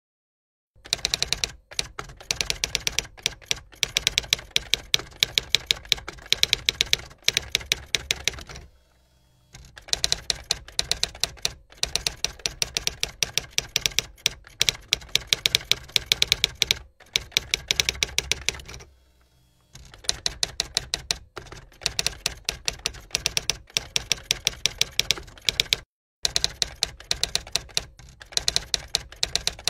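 Typewriter keys clacking in quick runs as text is typed out, with short pauses about nine and nineteen seconds in.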